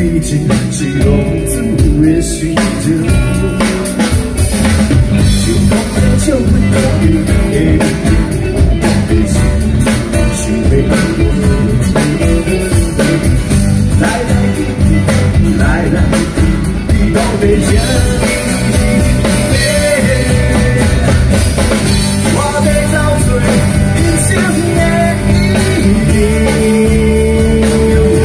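Live rock band playing loud amplified music: electric and acoustic guitars, bass and a drum kit.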